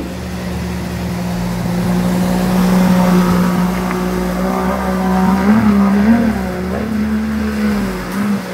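An engine running at a steady pitch, growing louder over the first few seconds, then its revs wobbling up and down a few times in the second half.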